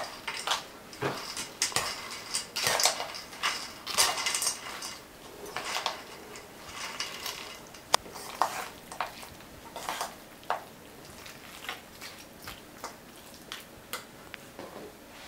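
A metal fork stirring a salad of Korean-style carrot, cheese, croutons and mayonnaise in a stainless steel bowl: irregular clinks and scrapes of metal on metal with the wet rustle of the salad. The stirring gets quieter and sparser near the end.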